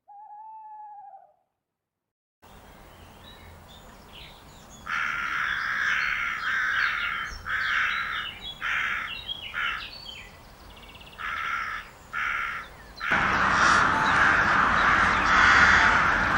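Birds calling: one short tonal call at the start, then after a pause a series of harsh, cawing calls each about half a second long. About two-thirds of the way in, a dense, continuous chorus of harsh bird calls starts abruptly.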